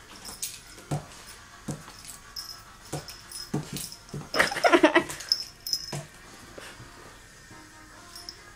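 Rhodesian Ridgeback dog play-fighting with a cat: scattered soft knocks and scuffles from paws on the counter, and about halfway a loud wavering whine from the dog lasting under a second.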